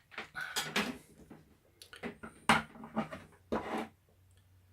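Irregular clinks and knocks of small tools and parts being handled on a workbench.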